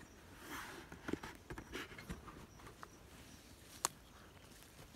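Footsteps and leaves and stems brushing past while walking through low scrub: soft scattered rustles and light crunches, with one sharp click, like a twig snapping, about four seconds in.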